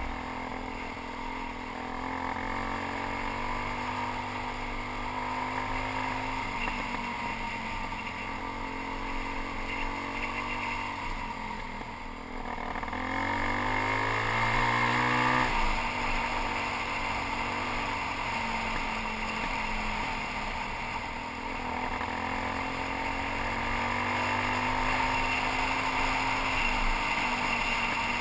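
Suzuki DR-Z400's single-cylinder four-stroke engine running under way. About halfway through, its pitch rises for a few seconds as it accelerates, then drops suddenly.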